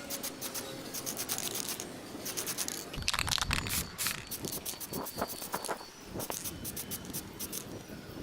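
Repeated hand scraping and rubbing strokes, irregular in pace, with a louder run of strokes about three seconds in.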